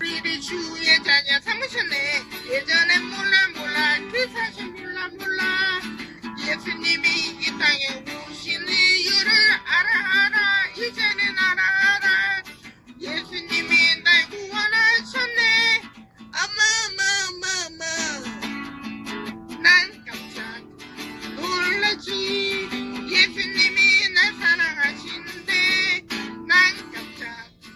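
A woman singing a cheerful song along with an acoustic-guitar backing track, holding one long note with strong vibrato about two-thirds of the way through.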